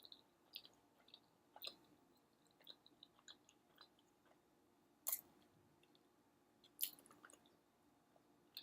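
Faint close-up chewing of a soft bagel sandwich, with small wet mouth clicks and two sharper smacks about five and seven seconds in.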